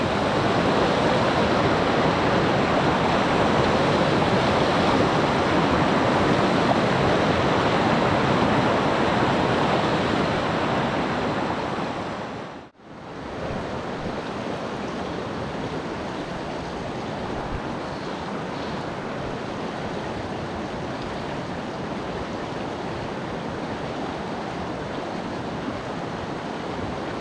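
Steady rush of flowing stream water. It cuts out for a moment about halfway through, then goes on a little quieter.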